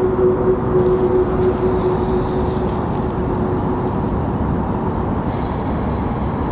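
Steady low rumble of outdoor background noise, with a faint held tone that fades out about five seconds in.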